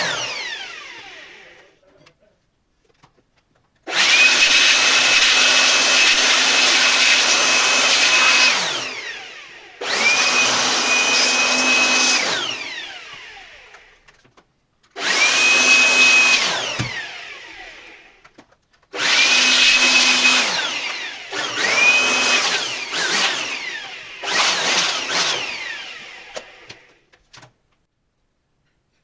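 A small high-speed electric motor run in five bursts of two to five seconds each, a steady whine over a hiss. Each burst starts with the pitch rising as it spins up and ends with the pitch falling away slowly as it winds down.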